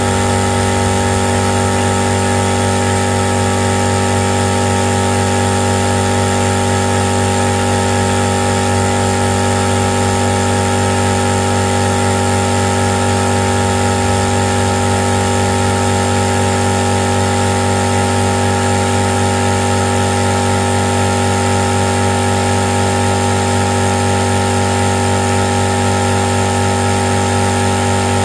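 Tagred TA3397 running under test at one steady speed, an even, unchanging mechanical hum with no revving or pauses.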